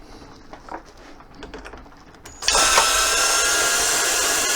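A few faint handling clicks, then about two and a half seconds in a power drill-driver starts and runs at a steady speed. It is driving a long screw that only spins round and round in its hole instead of biting.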